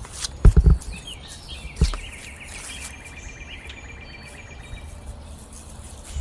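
A songbird singing a fast trill of repeated notes that runs into a longer held note, with faint chirps from other birds. A few loud thumps come in the first two seconds.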